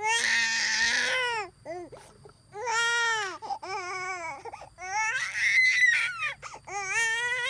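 Infant crying in four long wailing cries, each rising and falling in pitch, with short breathy whimpers in the gaps between.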